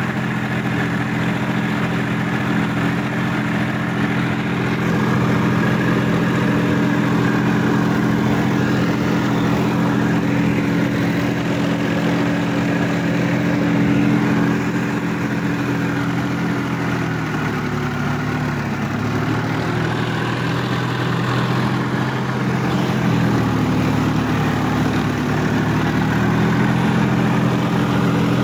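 Sonalika DI-50 RX tractor's diesel engine running steadily as the tractor drives through wet paddy-field mud. Its note sags lower twice for a few seconds in the second half, then picks back up.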